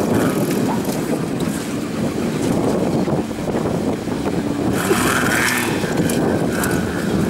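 Engine of a competition off-road 4x4 running, mixed with wind buffeting the microphone. About five seconds in, a higher wavering sound joins it.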